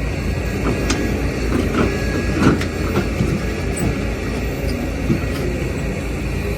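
Hitachi excavator and dump trucks at work: a steady heavy diesel rumble with irregular metallic clanks and knocks, the loudest about two and a half seconds in.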